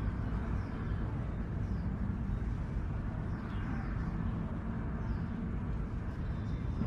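Steady low outdoor background rumble, with faint short high chirps now and then.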